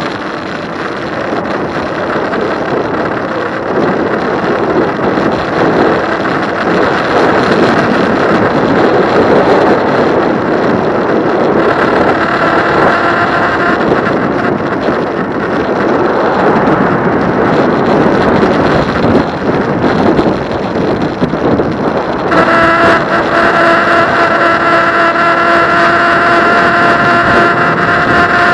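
Wind rushing over the microphone while riding an e-bike, a loud steady rush. A steady whine with several overtones comes in briefly about twelve seconds in and again for the last six seconds.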